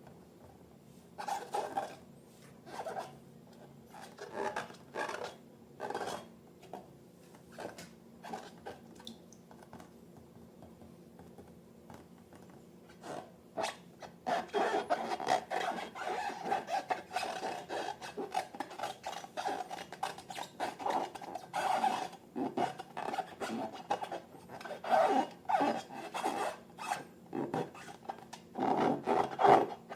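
Slime being worked, rubbing and scraping against its container. The strokes are scattered at first and become almost continuous from about halfway through.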